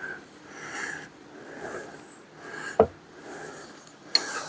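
Quiet handling sounds of a heavy bench vise on a wooden stand's slide: soft rubbing and shifting, with one sharp knock about halfway through and a lighter click near the end.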